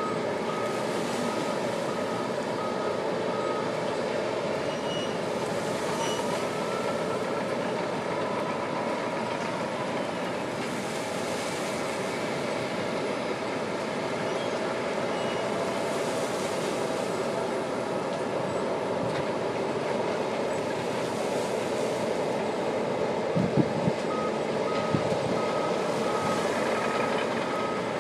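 John Deere 1050J crawler dozer's diesel engine running steadily under load as it works a pile of wood chips. Its reverse alarm beeps steadily for the first few seconds and again near the end, and a few sharp knocks come a few seconds before the end.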